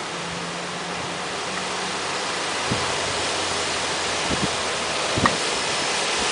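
Steady rushing noise of a thunderstorm, growing a little louder, with a few faint knocks.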